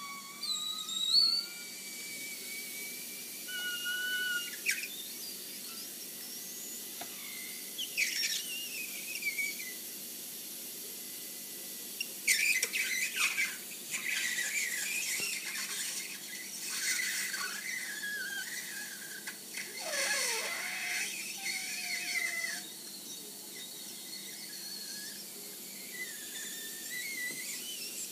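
Flip waffle maker squealing and whistling as steam escapes through the seam between its hot plates, in wavering, gliding tones that rise and fall, with stretches of rougher sputtering hiss in the middle.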